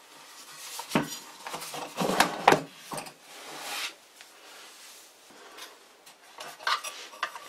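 A variable frequency drive's plastic-and-aluminium housing handled and set down on a wooden workbench: a sharp knock about a second in, a cluster of louder clunks around two seconds in, then softer rubbing and a few small clicks near the end.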